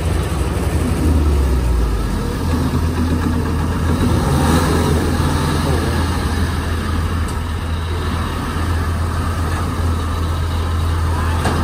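Engine of a tracked rice-hauling carrier running steadily as the machine crawls along, with a low hum that shifts in pitch about a second or two in.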